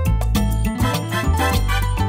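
Background music with a strong bass line and a steady beat.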